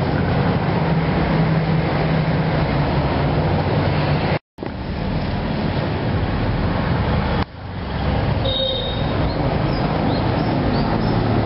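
Steady roadside traffic noise with a low engine hum underneath. It cuts out for a split second about four and a half seconds in and dips briefly again a few seconds later.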